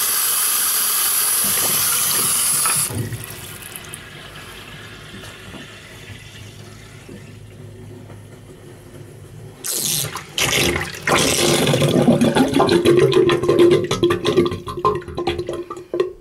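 Water draining fast from a bathroom hand basin through a freshly unblocked drain: a loud steady rush of water at first, then a quieter flow, then from about ten seconds in loud gurgling and slurping as the last of the water is sucked down the plughole. The fast drain is the sign that the blockage is cleared.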